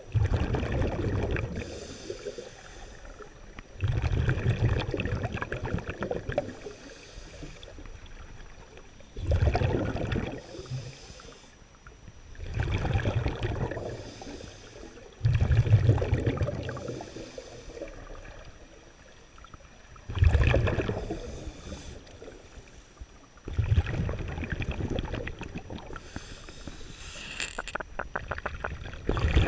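Scuba regulator breathing underwater: exhaled air bubbling out in bursts every three to five seconds, with quieter breaths between.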